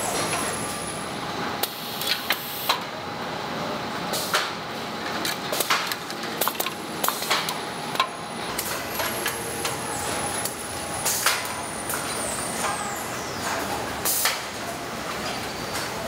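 Overhead garment conveyor running: metal hangers and trolleys clacking irregularly along the steel rail over a steady machinery hum, with a faint high whine slowly falling in pitch twice.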